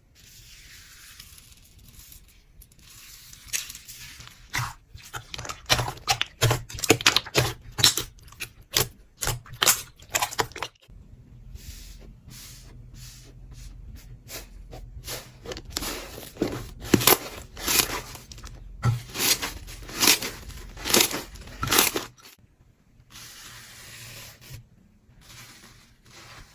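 Slime being pressed and kneaded by hand: a dense run of sharp sticky clicks and crackling pops, coming in two busy spells with short breaks between.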